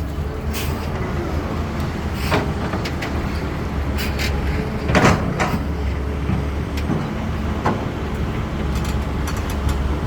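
CAT 320D excavator's diesel engine running steadily, with several sharp metallic clunks and scrapes from the bucket at work. The loudest of these comes about five seconds in.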